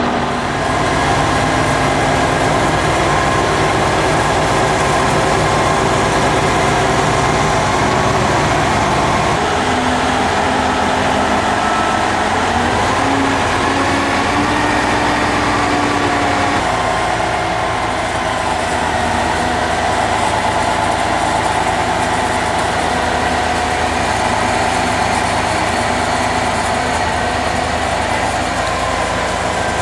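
Engine of a truck-mounted crane running steadily under load while it lifts a sailboat in slings, with the pitch shifting briefly partway through.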